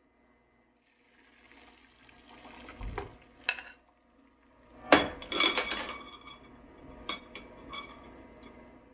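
Dishes and utensils clinking and clattering. There is a dull knock about three seconds in, a loud ringing clatter about two seconds later, then a few lighter clinks.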